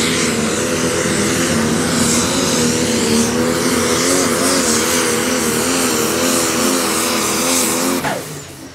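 Turbocharged diesel engine of a John Deere Pro Stock pulling tractor at full throttle, hauling the sled, its note wavering up and down under load. About eight seconds in, the engine pitch drops away sharply as the throttle comes off at the end of the pull.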